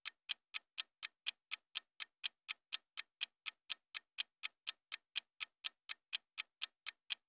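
Clock-ticking sound effect for an on-screen countdown timer: short, sharp, evenly spaced ticks, about four a second, stopping just before the end.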